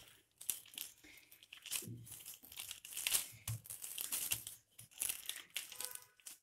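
Thin plastic sheet crinkling and rustling under a wooden rolling pin as it is rolled back and forth in repeated strokes over a sheet of warm sesame seeds bound in jaggery syrup.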